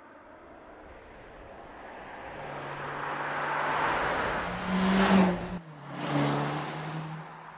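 Mercedes-Benz SLC 300 roadster's turbocharged four-cylinder engine and tyres passing close by: a steady engine note with tyre noise swells as the car approaches, breaks off sharply about two thirds of the way in, then swells again and fades as it goes by.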